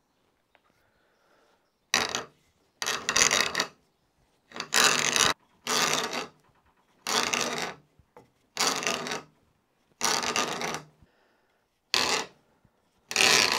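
T-handle screw auger boring by hand into fresh green wood: a rasping cut with each turn of the handle, about nine strokes, one every second or so, starting about two seconds in.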